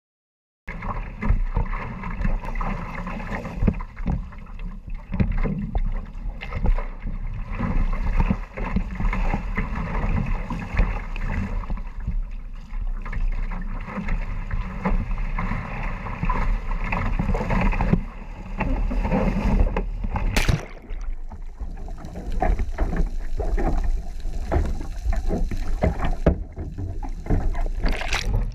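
Sea water rushing and splashing around a one-person outrigger canoe paddled through choppy ocean, with paddle strokes and a steady wind rumble on an action camera mounted on the hull. About two-thirds through there is a sharp splash and the sound turns duller, and near the end the canoe capsizes (a huli), putting the camera under water.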